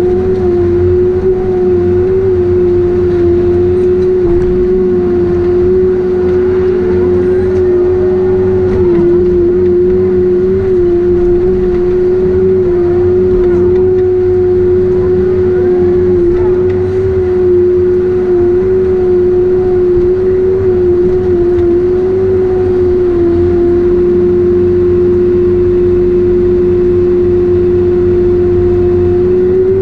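Heavy forestry machine's diesel engine running steadily at working speed, with a strong constant high whine over the low engine drone that wavers only slightly in pitch.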